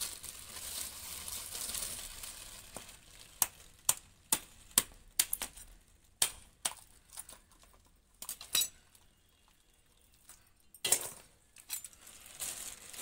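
Plastic bag rustling as a live mud crab is pulled out, then a string of sharp knocks and metallic clicks as a curved blade chops through the crab on a tiled floor. A louder clatter comes near the end.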